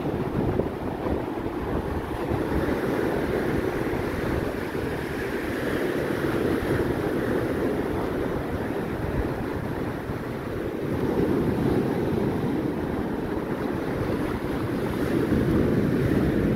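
Storm surf at high tide breaking and washing up a sand beach, with wind rumbling on the microphone. The surf swells louder a couple of times, about two-thirds of the way in and near the end.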